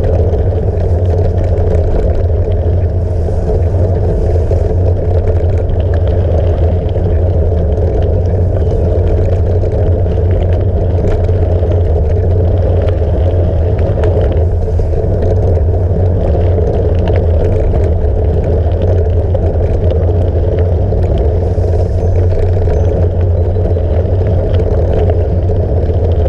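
Steady rumble of a gravel bike rolling over a dirt and grass track. The tyre noise and wind are picked up by a GoPro Hero 5 Session mounted on the stem cap, with faint small rattles now and then.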